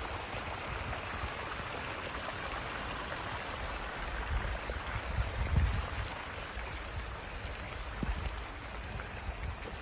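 Rainwater runoff flowing steadily in a steady rush, with light rain, and low buffeting on the microphone about four to six seconds in.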